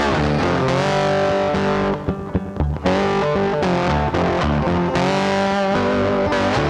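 Background music led by distorted electric guitar with bass, briefly dropping to quicker short notes about two seconds in.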